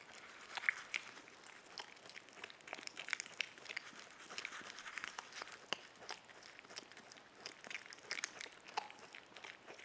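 Capybara biting and chewing a yam: soft, irregular crunching and small wet clicks as it gnaws the flesh.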